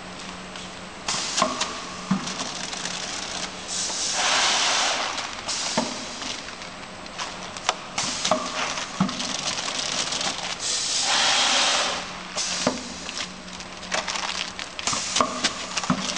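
UP300K vertical granule filling and packing machine running through its cycle. A steady motor hum runs under bursts of rushing, hissing noise that come every few seconds, each lasting a second or two, with sharp clicks and knocks of the mechanism in between.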